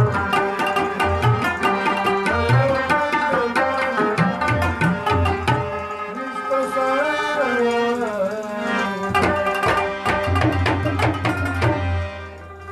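Pashto folk music played live: a rubab plucked in quick runs over tabla strokes and the steady held tones of a harmonium. The music drops away about a second before the end.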